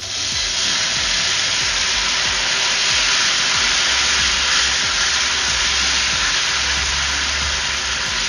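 Beef stock poured into a hot frying pan of fried onions and tomato paste, hissing and sizzling loudly as it hits the pan while a spatula stirs it. The sizzle starts suddenly as the stock goes in and holds steady.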